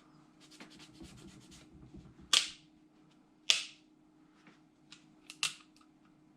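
Towel rubbing and scratching inside an airsoft pistol as it is wiped dry: a run of fast, fine scratchy strokes, then three short, sharp swishes spread over the next few seconds.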